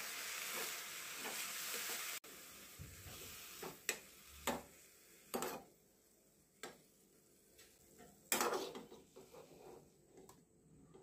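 Mint leaves sizzling in oil in a small aluminium pan as a steel spoon stirs and scrapes them. About two seconds in the sizzle drops off abruptly, and spaced scrapes and clinks of the spoon against the pan follow as the leaves are scooped out.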